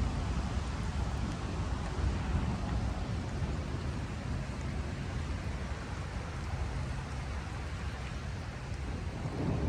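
Storm wind gusting with rain, the wind buffeting the microphone in a low rumble that rises and falls.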